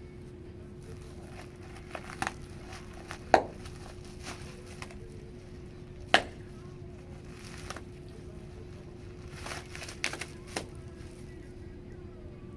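Bubble wrap crinkling with scattered sharp pops as bubbles burst, the two loudest about a quarter and halfway through, over a steady hum.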